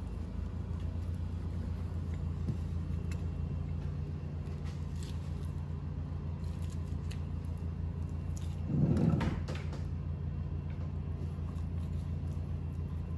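Hands handling a rubber stern-drive bellows and its metal clamp on an aluminium gimbal housing, making faint clicks and rubbing. There is a louder rub or knock lasting about a second, about nine seconds in, over a steady low hum.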